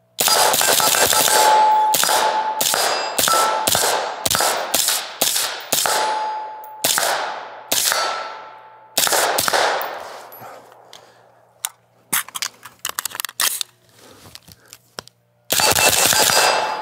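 Suppressed AR-15-pattern rifle (15.1-inch SPR with an Otter Creek OCM5 suppressor) fired in a quick string of about a dozen shots over the first nine seconds. A ringing note hangs after several of the shots. After a few seconds of lighter clicks, one more shot comes near the end.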